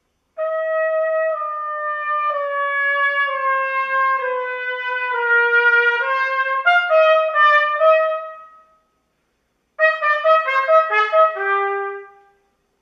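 Unaccompanied solo trumpet playing two phrases. The first is long: its notes step downward, then climb in quicker notes. After a pause of about a second comes a shorter, faster phrase that ends on a lower held note.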